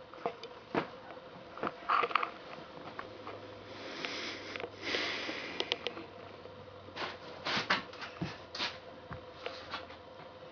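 A dog sniffing, with a couple of longer hissing sniffs about four and five seconds in, amid small clicks and rustles.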